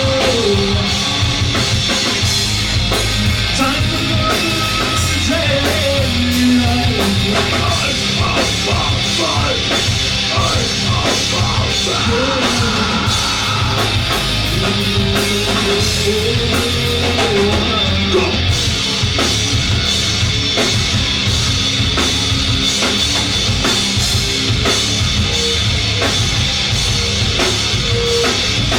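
Live rock band playing loudly: drum kit and distorted electric guitar, with a gliding melodic line above them.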